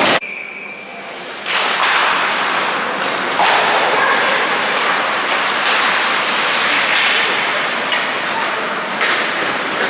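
Loud, steady noise of an ice hockey arena during a game, with a few sharp knocks of sticks and puck. It drops away for about the first second and a half, then comes back.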